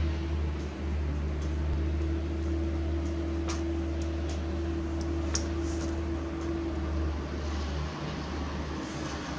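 Steady low mechanical hum with a faint constant tone above it, and a few faint ticks in the middle.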